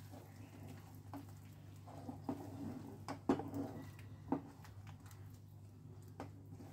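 Silicone spatula stirring and folding a thick spinach-and-yogurt paste in a non-stick pan: soft wet squishing and scraping, with a few light knocks against the pan about three and four seconds in. A low steady hum runs underneath.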